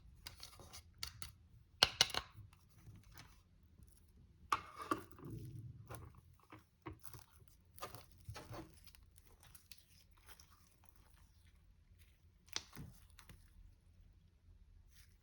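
Eye shadow and slime being crushed and mixed, giving irregular crackling and crunching with quieter stretches. The loudest crunches come about two seconds in, around four and a half seconds, and near the end.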